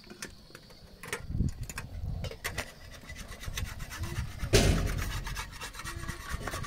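Metal spatula scraping and turning flatbread in a wide iron pan over a wood fire: repeated short scrapes and clicks, with a louder rush of noise about four and a half seconds in.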